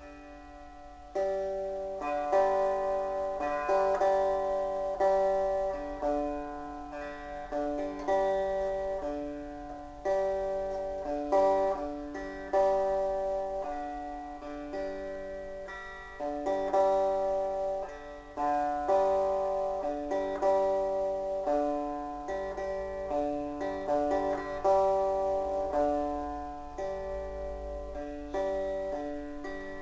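Gibson EDS-1275 double-neck electric guitar played on its 6-string neck: picked chords that start about a second in and ring on, struck again in a steady repeating pattern through a chord progression.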